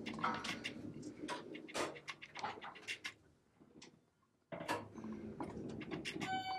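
Scattered clicks and rustles of handling in a small elevator car, cutting out briefly about two-thirds of the way through; near the end the elevator chime rings a single clear tone.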